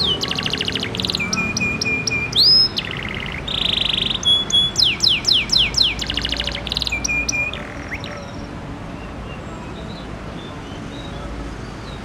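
Domestic canary (Indonesian local-bred 'kenari lokal') in full song. It sings two long phrases of fast trills, quick falling sweeps and held whistled notes, then stops about two-thirds of the way through.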